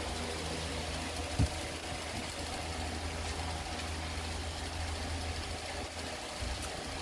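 A steady low machine hum with a faint hiss over it, and a single sharp knock about one and a half seconds in.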